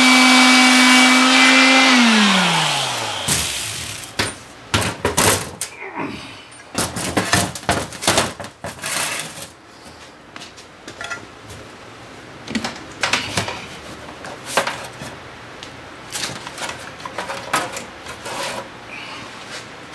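Handheld electric power tool running with a steady whine, then switched off about two seconds in, its pitch falling as it spins down. After that comes a run of irregular knocks, taps and clatters as metal parts are handled on a steel workbench.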